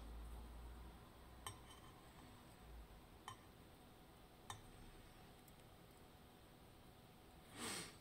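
Faint small clicks, three of them a second or two apart, as steel tweezers set tiny lock pins down on a wooden tray and stone slab, over near-silent room tone. A short soft rush of noise near the end.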